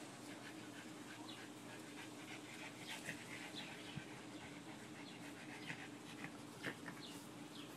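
Faint sounds of a French bulldog puppy and Boston terriers wrestling in play: dog panting and small whimpering noises, with many short, high, falling chirps scattered throughout.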